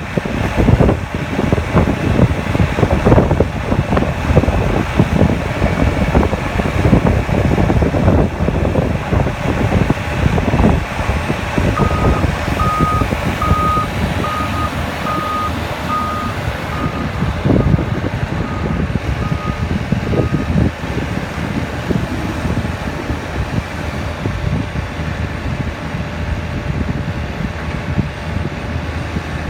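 Hyundai HL940XT wheel loader's Cummins diesel engine working hard. About twelve seconds in, its reverse alarm starts beeping at a steady pace, a bit more than one beep a second, and the beeps grow fainter and stop about twenty seconds in.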